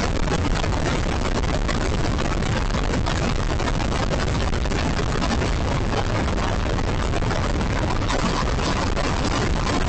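Motorcycle cruising at highway speed, about 100 km/h: a steady rush of wind over the microphone mixed with engine and road noise.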